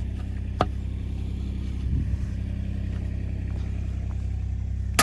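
Vehicle engine idling steadily as a low, even hum, with one sharp knock about half a second in.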